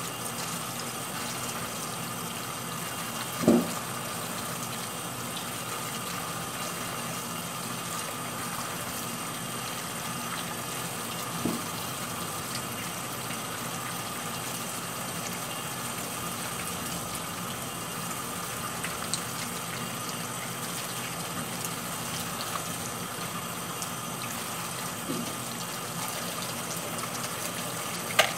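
Kitchen faucet running steadily onto limes as they are rinsed and rubbed by hand under the stream. A few short knocks sound over it, the loudest about three and a half seconds in.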